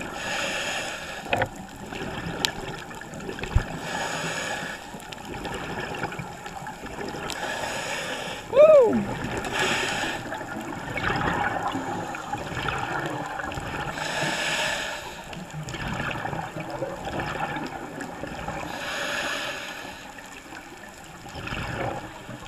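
Scuba breathing underwater through a regulator: a burst of exhaled bubbles every few seconds. A little over a third of the way in there is a brief squeal that rises and then falls, louder than the rest.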